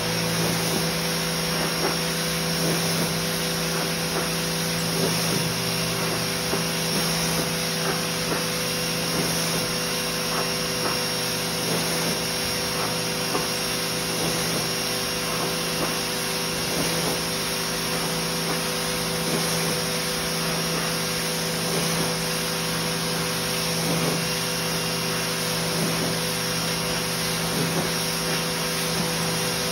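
Pressure washer running steadily: a motor-driven pump hums under the hiss of water spraying from the wand onto a rug to flood it.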